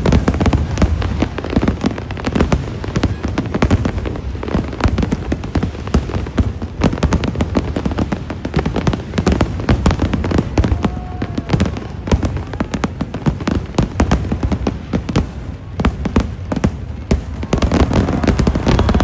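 Fireworks display: a dense, continuous barrage of shell bursts and crackling reports, many bangs a second with deep booms underneath.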